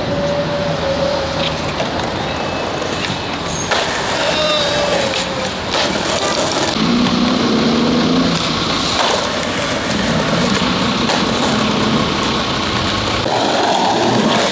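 Skateboard wheels rolling over concrete pavement in a steady rush, with city traffic and a vehicle engine humming underneath. A single sharp clack comes about four seconds in.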